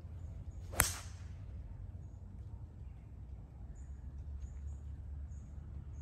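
A metal-headed golf club strikes a teed ball once about a second in: a sharp crack with a short ring. Faint high-pitched chirps follow later.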